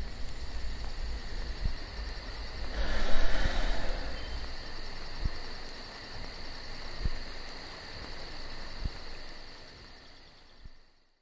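Night insects, likely crickets, trilling steadily in high thin tones, with a brief noisy rush about three seconds in and a few soft knocks; the sound fades out just before the end.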